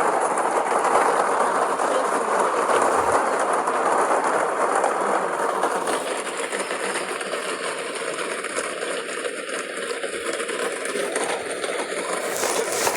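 Many fireworks going off at once in a burning fireworks store: a dense, continuous rapid crackling and clatter with no single big bang, easing slightly about halfway through.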